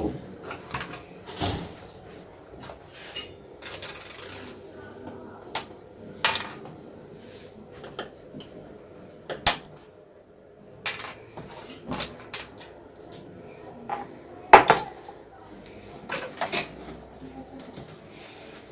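Irregular clicks and clinks of small metal tools and parts being handled, with one louder knock about fourteen and a half seconds in.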